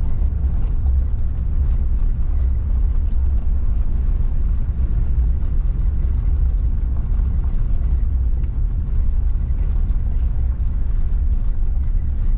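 Pickup truck driving: a steady, loud low rumble of engine and road noise with faint scattered ticks.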